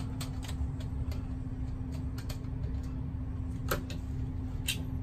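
Small scattered clicks and scrapes of a white wire and a screwdriver being worked against the metal terminal screw of a GFCI outlet, with a couple of sharper clicks near the end, over a steady low hum.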